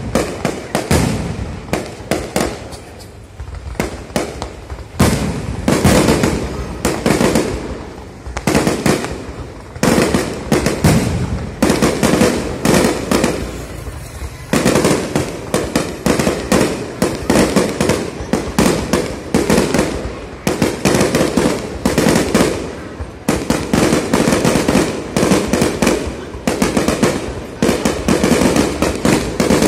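A fireworks barrage fired close by: shots launch and burst overhead one after another, in a dense run of bangs and crackle. There is a short lull about three seconds in and another brief gap a little after fourteen seconds.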